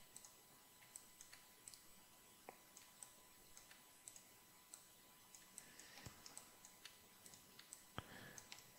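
Faint, irregular clicks of a computer mouse and keyboard, about two or three a second, with a sharper click about eight seconds in.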